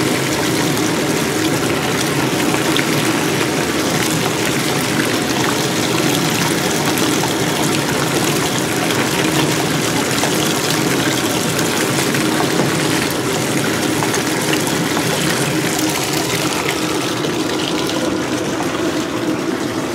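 Bathtub faucet running steadily into a filling tub, its stream falling onto a bubble bar held under it.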